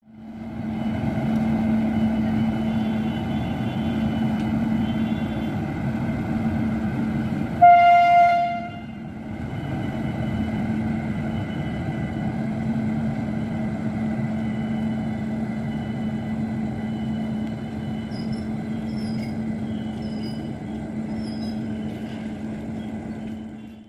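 WAP-5 electric locomotive giving a steady electric hum. About eight seconds in it sounds one horn blast lasting a little over a second, the departure signal, and then the hum carries on as the train pulls away.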